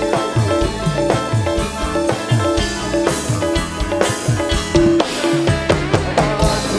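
Live band music: drums and percussion keep a steady beat under held instrumental notes.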